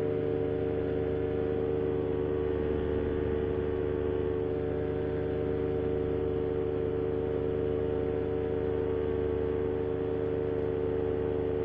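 Moster 185 single-cylinder two-stroke paramotor engine and propeller running at steady cruise power in flight, a constant droning hum with no change in pitch. The propeller has a failed repair, which the pilot hopes is only out of balance and not shedding its tips again.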